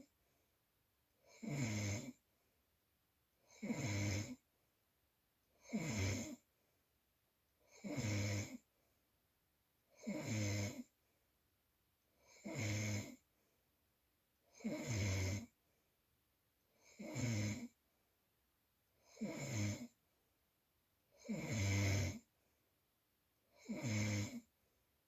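Snoring, steady and regular: eleven snores, one about every two and a quarter seconds, each lasting under a second, with quiet between breaths.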